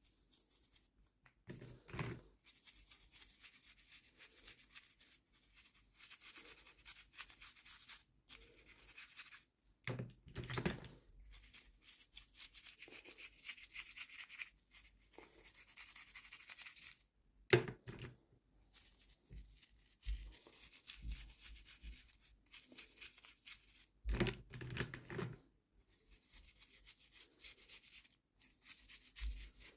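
Toy packaging being handled and unwrapped by hand: stretches of scratchy rustling and rubbing, broken by a few soft thumps.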